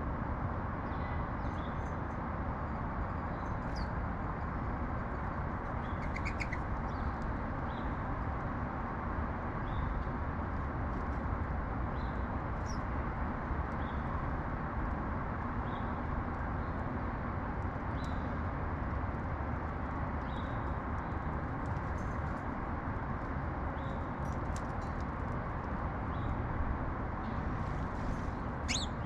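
Small birds chirping faintly, short high chirps every second or two with a brief trill about six seconds in and a louder chirp near the end, over a steady low rumble of urban background noise.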